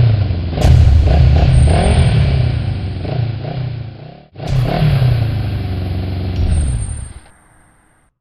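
Motocross bike engine revving hard, rising and falling in pitch, in two edited stretches: a sharp cut a little after four seconds in, and the second stretch fades out near the end.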